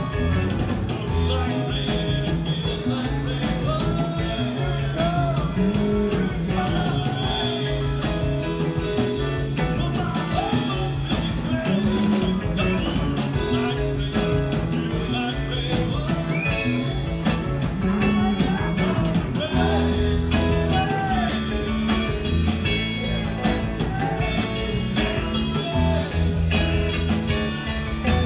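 Live rock band playing: electric guitars, bass guitar and drum kit, with gliding guitar lines over the bass and drums.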